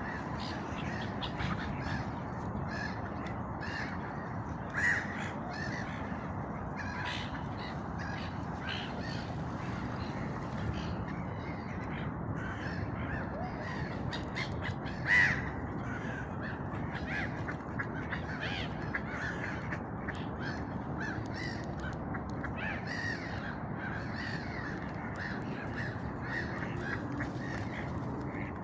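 Birds calling repeatedly with many short calls, two louder ones about five and fifteen seconds in, over a steady low background noise.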